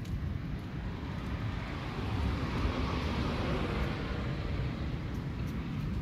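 Rumble of a passing vehicle, swelling about two seconds in and fading again.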